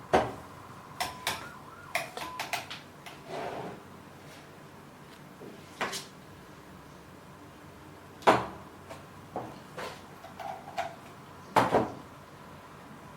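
About a dozen short clicks and knocks of handling, irregularly spaced, a few followed by a brief faint tone. The loudest knocks come about eight and eleven and a half seconds in.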